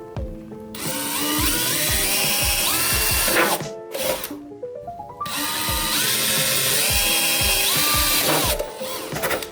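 Power drill drilling pilot holes through a car's front bumper: two runs of about three seconds each, the motor's pitch climbing as it spins up and dropping as it stops. Background music plays underneath.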